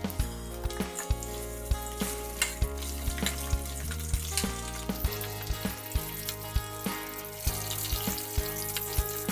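Food frying in hot oil in a pan: a steady sizzle with many sharp crackles and ticks, the sizzle growing thicker about halfway through. Background music with a low steady beat plays underneath.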